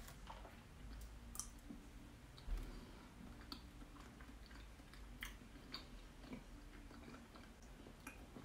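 A person chewing food quietly, with a few sharp clicks spread through it and one low thump about two and a half seconds in.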